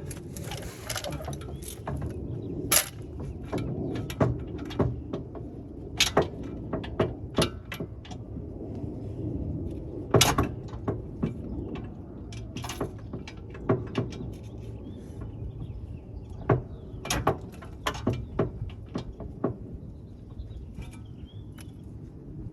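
Irregular metal clicks and clanks of a socket, extension and breaker bar being fitted and worked on a car's rear hub assembly bolts, trying to break them loose.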